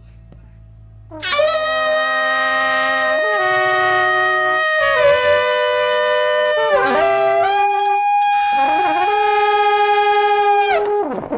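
Saxophone and trombone playing a horn duet in long held notes that move together and change pitch every second or two. They come in loud about a second in, over quieter band playing, and cut off together just before the end.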